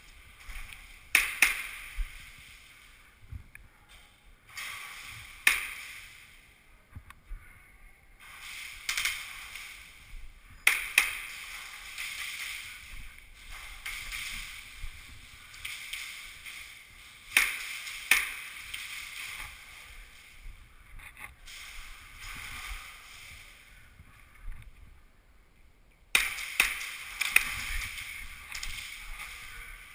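Airsoft gunfire: scattered sharp cracks, some single and some in quick runs, each ringing briefly off the plywood walls of an indoor arena.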